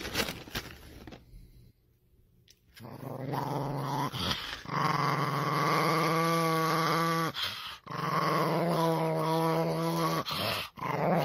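Small chihuahua growling in long, steady stretches with short breaks, starting about three seconds in, while baring its teeth.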